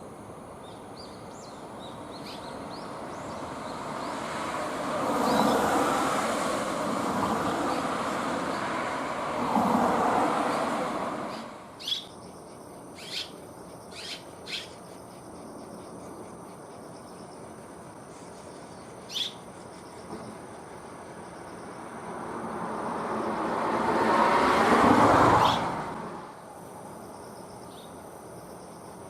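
Two vehicles passing by, each swelling up and fading away over several seconds. In the gap between them come a handful of short, sharp bird chirps.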